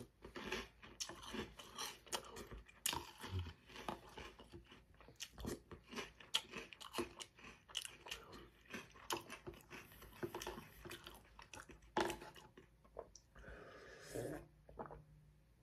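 Close-up chewing and crunching of mouthfuls of Reese's Puffs cereal in milk. Near the end the crunching gives way to gulping as the leftover milk is drunk from the bowl.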